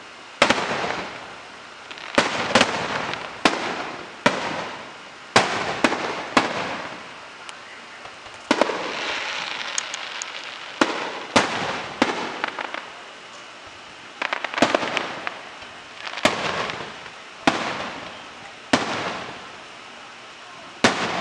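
Aerial firework shells bursting in quick succession, a sharp bang about every second, each followed by a fading crackle and hiss. A longer stretch of crackling comes about nine seconds in.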